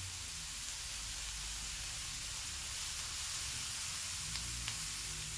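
Butter melting and sizzling in a hot frying pan with sautéed onion and garlic, a steady soft hiss.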